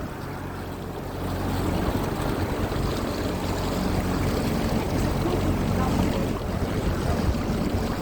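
Motorboat engine running at a steady hum, with water rushing along the hull and wind on the microphone.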